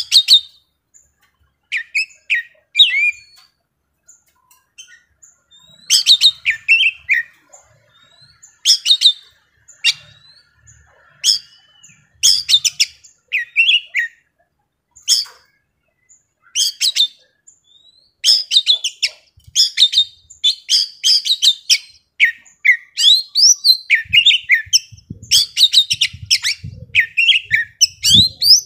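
A young male oriental magpie-robin sings in full, varied song: loud, quick whistles and sharp chirping notes come in bursts with short pauses, then run almost without a break over the last several seconds.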